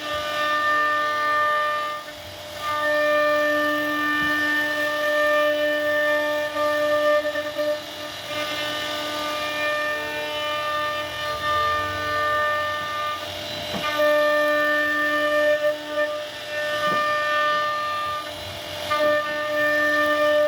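CNC router spindle whining at a steady high speed while carving wood, one fixed pitch with overtones, briefly dipping twice.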